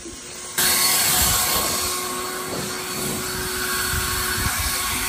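A blower starts abruptly about half a second in and runs steadily and loudly, with a steady whine over a rush of air, blowing debris off the cabin floor.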